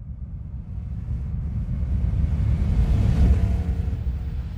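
Sound effect for an animated logo intro: a deep rumble that swells to a peak about three seconds in and then eases, with a rising hiss building near the end.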